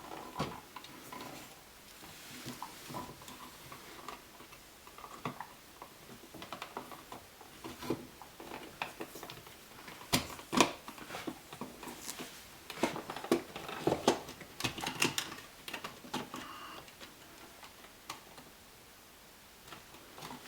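Irregular small clicks, taps and scrapes of hand work on an outlet: a screwdriver and wires being worked at the terminals of a GFCI receptacle. The clicks are sparse at first, come thicker and louder about halfway through, and thin out near the end.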